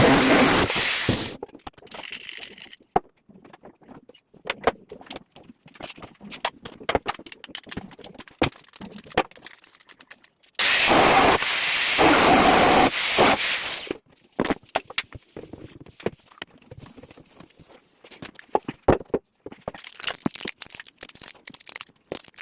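Water gushing twice for two to three seconds each time, at the start and about eleven seconds in. Between the bursts come many sharp metallic clicks, rattles and scrapes of plumbing fittings being handled.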